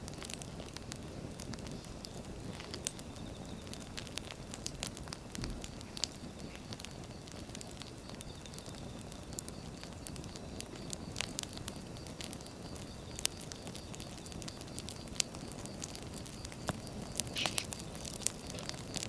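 Wood fire burning, crackling with irregular sharp snaps and pops over a low steady rumble.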